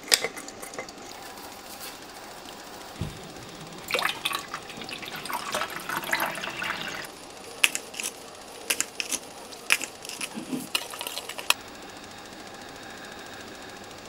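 Liquid poured into a small stainless steel saucepan while a sauce is mixed, with a stretch of pouring from about four to seven seconds in. A run of sharp clicks follows.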